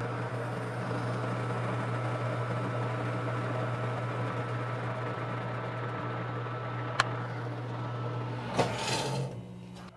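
Metal lathe running under cut, a tool bit turning the outside perimeter of a cast zinc-alloy (ZA-12) hand wheel: a steady motor hum with an even cutting hiss. There is a sharp click about seven seconds in and a brief rush of noise near the end.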